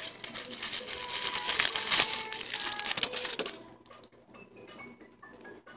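Close, dense rustling and crackling of a synthetic hairpiece being handled by fingers right at the microphone, stopping about three and a half seconds in, then a few faint clicks.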